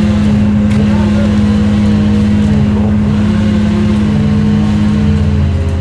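A heavy engine running steadily at a constant pitch, its level dropping slightly near the end.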